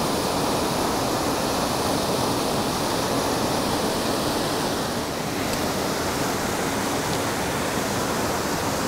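Small mountain-stream waterfall pouring into a pool: a steady rush of falling water.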